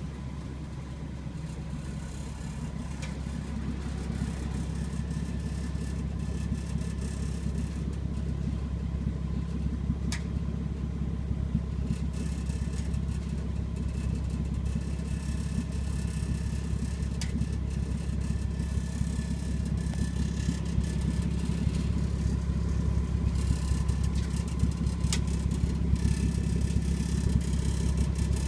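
Car engine running steadily through a Nismo exhaust system, a low drone that slowly grows louder, with a few sharp ticks now and then. The exhaust is rattling (klappern), the fault the recording is meant to show.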